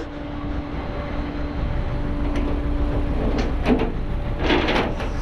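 A vehicle engine idling with a steady low hum, with a couple of short clattering rattles after about three and a half seconds.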